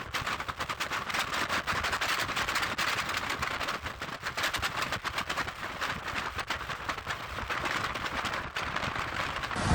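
Precipitation striking a hard surface: a dense, irregular patter of sharp ticks, steady throughout.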